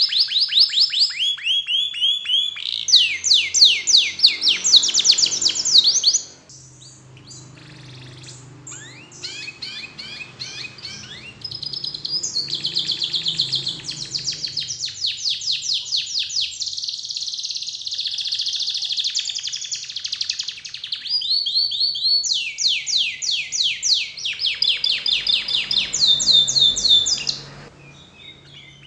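Domestic canary singing a long, varied song of fast trills and rolls, each phrase a quick run of repeated notes at its own speed and pitch. The song turns softer for several seconds about six seconds in, then comes back loud, and drops away near the end.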